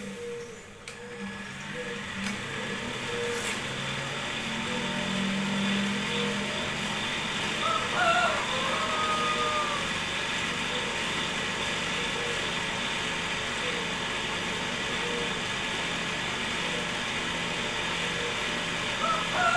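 Cotton candy machine's DC motor running steadily with a low hum under a constant mechanical whir. Twice, about 8 s in and again at the end, a short higher-pitched sliding tone cuts across it.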